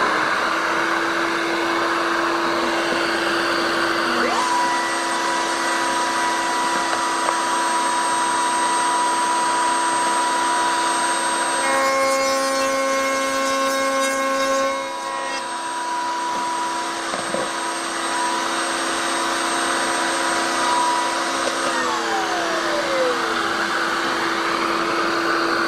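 Shop vacuum running steadily for dust extraction. A second power-tool motor starts about four seconds in and runs at a steady pitch, its sound changing for a few seconds midway. It winds down near the end while the vacuum keeps running.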